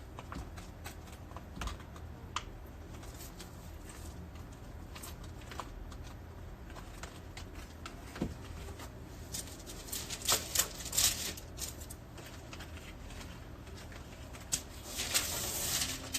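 Scattered light clicks and taps, a few louder ones about two-thirds of the way in, over a low steady hum, with a brief rustle near the end.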